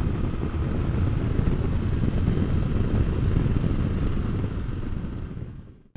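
Royal Enfield Interceptor 650's 648 cc parallel-twin engine running steadily under way, with wind and road rush on the microphone. It fades out near the end.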